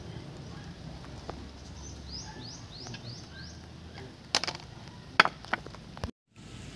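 A few sharp metallic clicks and knocks as steering rack parts are handled, the two loudest about four and five seconds in. Before them comes a short run of quick, high, falling chirps.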